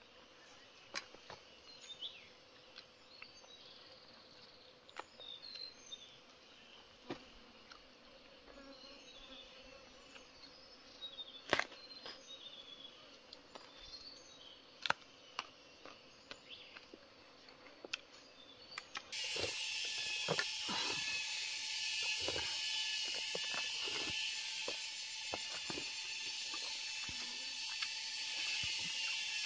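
Insects chirping and buzzing, with scattered sharp clicks. About two-thirds of the way through, a loud, steady, high-pitched insect chorus sets in abruptly.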